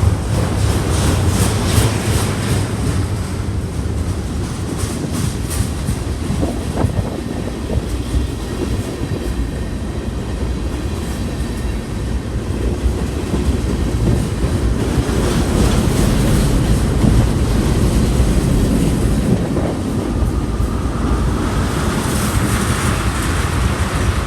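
A train rolling past with a steady low rumble, its wheels clicking over the rail joints, most clearly in the first several seconds.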